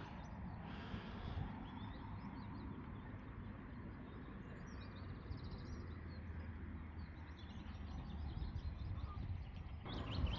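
Small birds chirping faintly and intermittently over a steady low outdoor background rumble.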